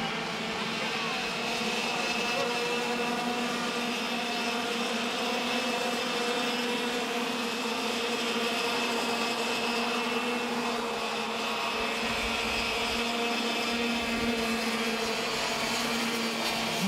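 Racing karts' two-stroke engines running at high revs on track, a steady buzzing drone whose pitch shifts only slightly.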